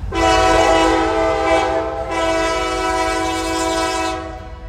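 Approaching diesel locomotive's air horn sounding a loud, steady chord of several notes, held for about four seconds with a brief dip about halfway through.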